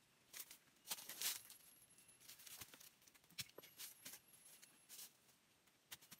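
Faint scattered rustling and crackling as the sacked load on a motorbike is handled and shifted, with steps in dry leaf litter; the loudest crackles come about a second in.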